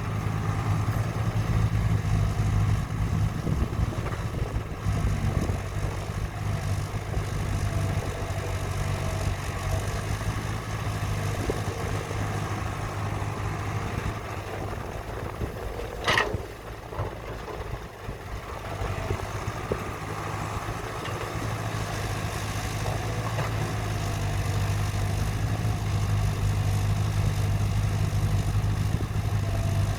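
Engine of heavy construction machinery running steadily with a deep hum, with one sharp knock about halfway through.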